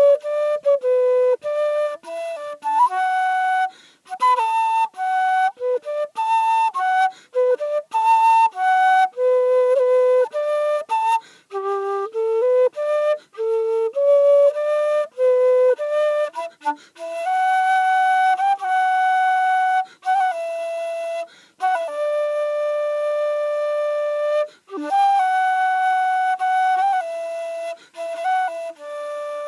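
A keyed simple-system flute played solo: a melody of quick, ornamented short notes, turning to longer held notes about halfway through, with brief pauses for breath.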